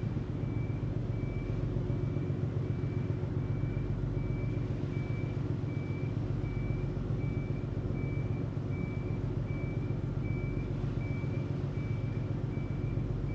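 Steady low rumble of an Incat wave-piercing catamaran fast ferry's diesel engines as it manoeuvres slowly in harbour. A faint high beep repeats about one and a half times a second throughout.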